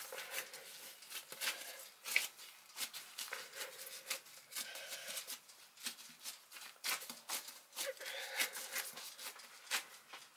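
Gloved hands kneading and folding a soft, chocolate-studded dough on a granite counter: irregular soft slaps, presses and rustles of the rubber gloves against the dough and stone.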